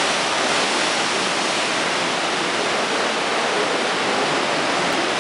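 Seawater surging and churning over rocks inside a sea cave: a steady, unbroken rush of surf.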